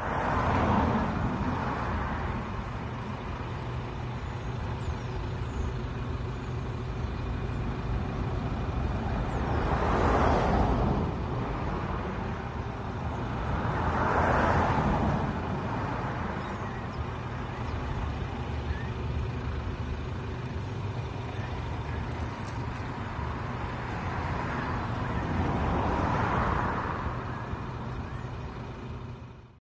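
Street traffic: a steady low rumble with vehicles swelling past and fading four times.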